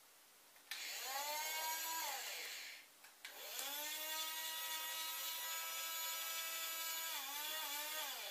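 Small electric gear motor of a remote-control toy fire truck whining as it turns and raises the ladder. It runs in two bursts, a short one about a second in and a longer one from about three seconds in. Each burst rises in pitch as the motor spins up and drops as it stops.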